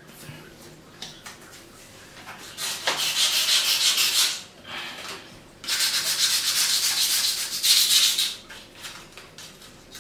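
An abrasive sheet scrubbed back and forth over an etched copper-clad circuit board, stripping the black resist off the copper traces. It comes in two spells of quick scraping strokes: one of about two seconds, starting a couple of seconds in, and a longer one of about three seconds after a short pause.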